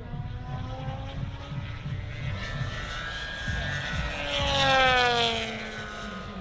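Large-scale RC Spitfire model's engine and propeller making a pass: a steady drone that swells, is loudest about five seconds in, and drops in pitch as the plane goes by.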